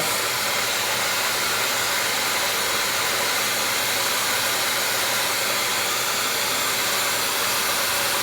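1800-watt ionic hair dryer running on its number 1 setting with the concentrator nozzle on, a steady blowing rush of air with a faint motor hum.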